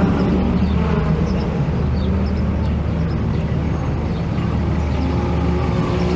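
A motor vehicle's engine running steadily in street traffic, a continuous low hum with no change in pitch.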